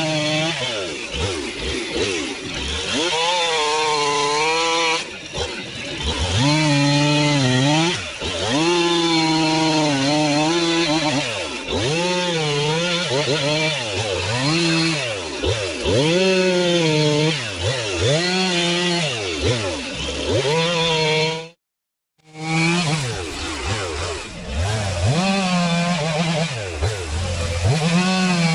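Stihl MS 362 two-stroke chainsaw cutting firewood logs at full throttle. The engine note drops as the chain bogs in the wood and climbs back, over and over. The sound cuts out completely for under a second about three-quarters through.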